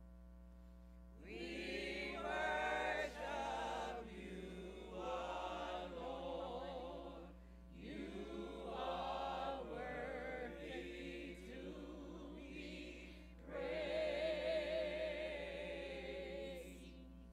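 Church choir singing a gospel selection in long phrases, with short breaks between them.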